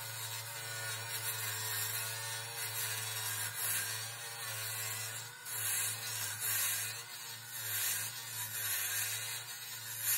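Turning gouge cutting a spinning canary wood blank on a wood lathe: a steady hiss of shavings being peeled off over the low hum of the lathe. The cut gets louder in several surges in the second half.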